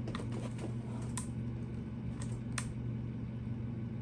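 Selector switch of a Valken M17 paintball marker being turned between positions, giving a sharp click at each firm, positive detent. A handful of clicks, the two crispest about a second and two and a half seconds in, over a steady low hum.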